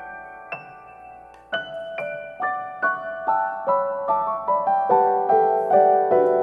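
Background piano music: a slow, gentle melody of single notes, sparse at first and moving on more steadily from about a second and a half in.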